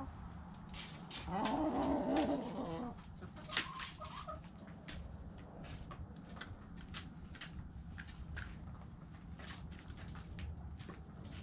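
Chickens: one drawn-out call of about a second and a half, wavering in pitch, then a couple of short clucks. Soft scattered clicks run through the rest.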